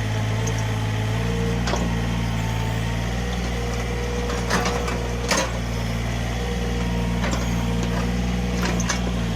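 Mini excavator working, its diesel engine running steadily with a higher tone that rises and fades. About five sharp metallic clanks and knocks sound over it, the loudest two close together around the middle.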